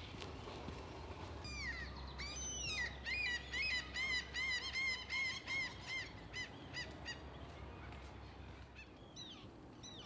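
A bird calling: a quick run of repeated arching notes, about three a second, for several seconds, then a few scattered calls near the end, over a faint steady background.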